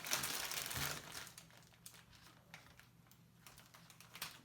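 Kit Kat wrapper crinkling, loud for about the first second, then a few scattered light crinkles and clicks.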